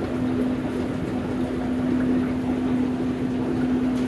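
Steady hum of aquarium equipment, pumps and filters running: one constant mid-pitched tone over an even rushing noise.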